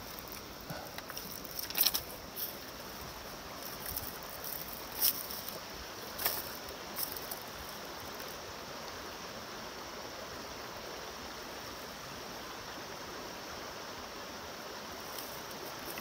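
Shallow mountain stream running steadily over stones, with a few short crunching steps on gravel in the first half.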